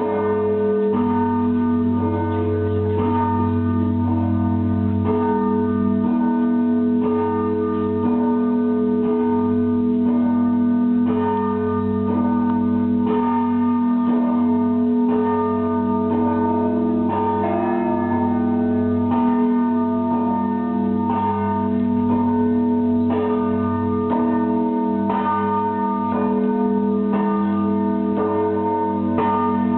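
Russian Orthodox monastery bells ringing in a zvon: the deep, steady hum of the large bells sounding under repeated strikes of smaller, higher bells.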